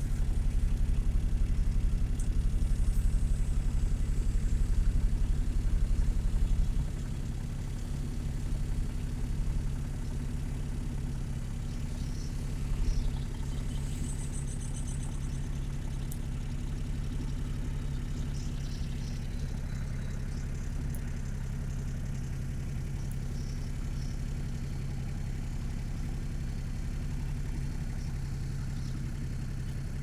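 Car engine idling steadily, heard from inside the car's cabin as a low, even hum that drops a little in level about seven seconds in. A few faint high chirps come in around the middle.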